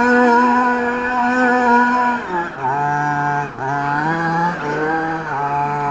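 Motor of a radio-controlled monster truck under throttle as it drives. The pitch holds high for about two seconds, then drops and comes back in several shorter bursts as the throttle is blipped.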